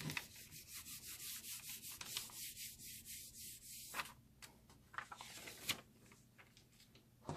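Hands rubbing briskly back and forth over scratch paper laid on cardstock atop an inked rubber background stamp, pressing the image onto the card: a faint, quick dry swishing. It stops about four seconds in, followed by a few light taps as the paper and card are handled.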